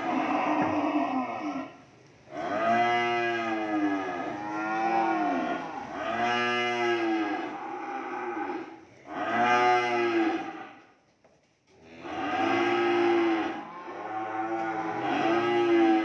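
Cattle mooing over and over: about six long, drawn-out moos, each lasting one to three seconds, with short breaks between them.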